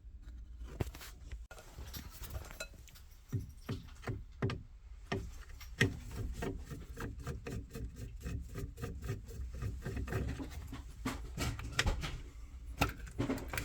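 Light handling noises: scattered knocks, clicks and rubbing at irregular intervals, with a few louder knocks a few seconds in and near the end, over a low steady hum.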